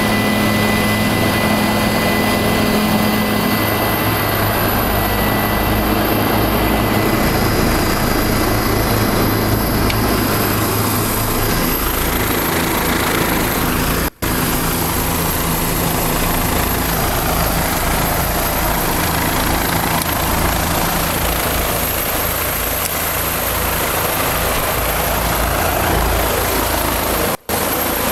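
Helicopter engine and rotor running, a loud steady noise with a faint high whine in the first few seconds. The sound cuts out for an instant twice.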